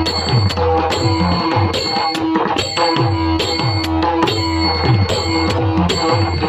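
Pakhawaj played in a fast kirtan rhythm: a dense run of sharp strokes on the treble head and deep bass strokes that slide down in pitch. A steady held note sounds beneath the drumming.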